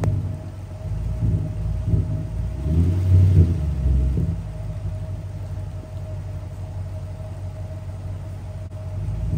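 Range Rover V8 with its muffler deleted, running with a deep exhaust note: the throttle is blipped several times in the first few seconds, the loudest rev about three seconds in, then it settles back to a steady idle before one more short rev at the end.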